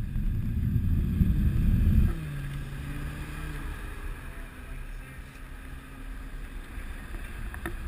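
Wind rumbling on the microphone of a camera riding on a moving bicycle, heavy for about two seconds and then dropping away sharply, leaving a quieter street-traffic hum with a vehicle engine note falling in pitch.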